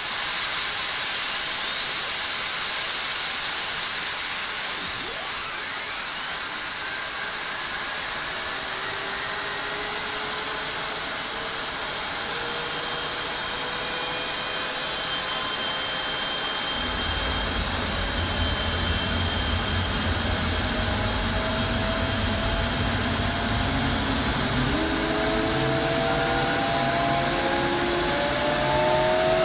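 General Electric F110-GE-100 afterburning turbofan running up on a hush-house test stand. Over a steady rushing hiss, a high whine climbs in pitch during the first few seconds. A deep rumble comes in about 17 seconds in, and tones climb again near the end as the engine spools up.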